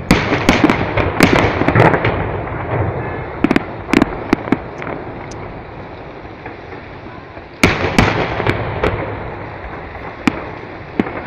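Aerial firework shells bursting: a heavy bang right at the start and another about seven and a half seconds in, each followed by a scatter of sharp pops and crackles as the stars break, over a low rumble.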